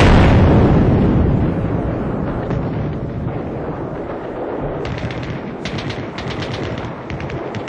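Battle sound effects: the rumble of a large explosion dies away over the first couple of seconds, then short bursts of rapid machine-gun fire start about five seconds in.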